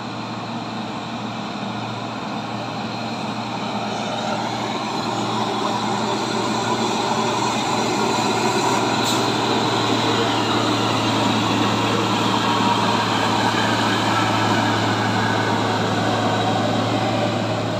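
Intercooled Mitsubishi Fuso diesel truck pulling up a steep climb, its engine note steady and growing louder as it approaches, easing off slightly near the end.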